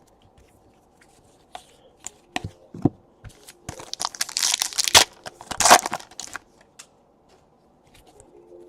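Foil trading-card pack being torn open and its wrapper crinkled: a few scattered light clicks and handling sounds, then a dense stretch of tearing and crinkling from about four to six seconds in.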